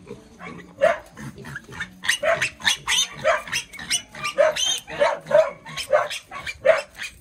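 Two young piglets squealing over and over, about two short shrill squeals a second, in distress at being carried upside down by their hind legs.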